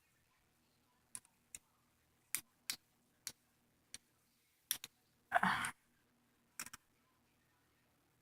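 Lego-built butterfly knife being flipped by hand, its plastic handles clacking in sharp, irregularly spaced clicks, about ten in all, with a short murmur about halfway through.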